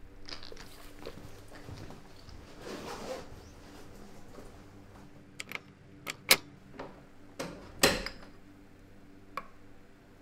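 Soft rustling, then a handful of sharp clicks and knocks in the second half, two of them much louder than the rest, over a low steady hum.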